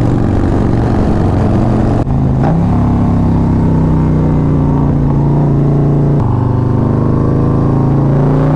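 Harley-Davidson Road Glide's V-twin engine running at highway cruising speed, heard from the rider's seat. It holds a steady note, which steps up in pitch about two seconds in and then holds again.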